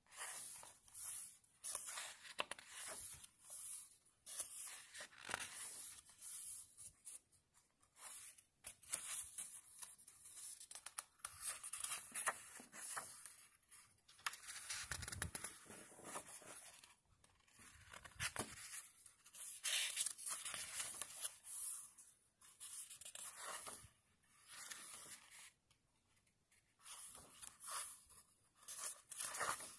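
Paper pages of a bound booklet being turned and rubbed by fingers: a run of short, dry rustles and swishes with brief pauses between them, and a soft low bump about halfway through.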